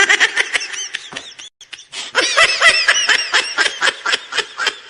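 Laughter sound effect: rapid, repeated bursts of laughing, in two bouts with a short break about one and a half seconds in.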